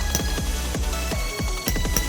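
Electronic background music with a steady, fast beat and a heavy bass line.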